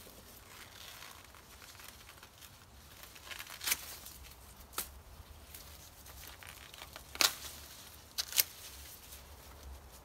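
Corn leaves and husks rustling and crinkling as ears of corn are pulled from the stalks by hand, broken by about five sharp snaps as ears break off, the loudest a little after seven seconds and one near eight and a half seconds.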